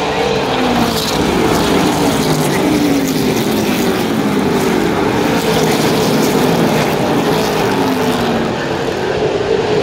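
A pack of super late model stock cars' V8 engines running laps on a short oval, the overlapping engine notes repeatedly sliding down in pitch and rising again as cars pass and go through the turns.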